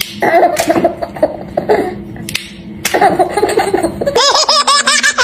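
A baby laughing in bursts, broken by a few sharp snaps of vegetable stalks being broken by hand. Near the end the laughter turns into a fast run of high-pitched giggles.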